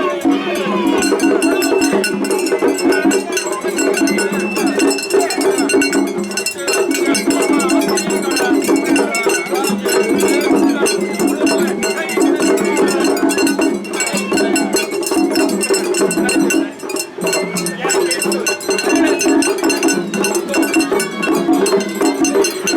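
Japanese festival hayashi music: a small hand gong (atarigane) clanging in a rapid, continuous rhythm together with drums and other instruments.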